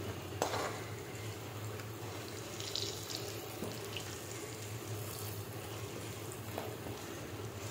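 Hot oil sizzling steadily in a kadhai as fried jimikand (elephant foot yam) pieces are scooped out with a steel ladle. A light tap of the ladle on the pan comes about half a second in, and a fainter one later.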